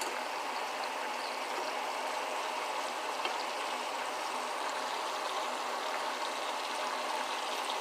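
Ribs frying in hot oil in a pan, a steady even sizzle.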